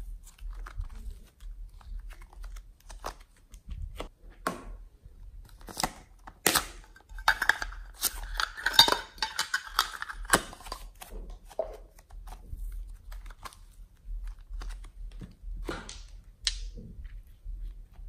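Hands handling small clear plastic slime tubs, lids and bottles: scattered clicks and taps, with a stretch of crackling about halfway through.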